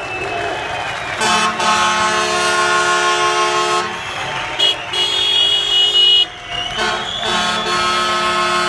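Vehicle horns honking in three long held blasts, the middle one higher-pitched, over street traffic noise.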